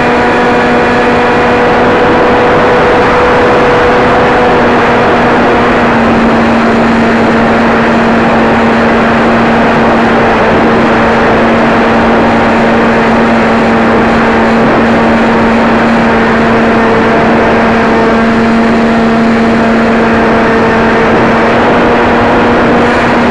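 Motor and propeller of a small aircraft running steadily, recorded from a camera on board, a constant drone over heavy wind rush, with a slight shift in pitch about six seconds in.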